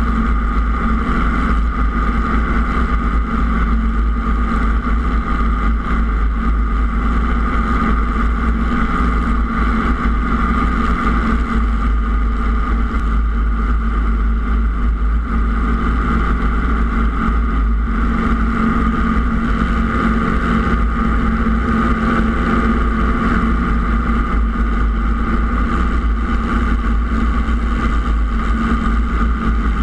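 Robinson R22 helicopter's piston engine and rotor running steadily, heard close up from a camera mounted outside the fuselage, with a heavy low rumble.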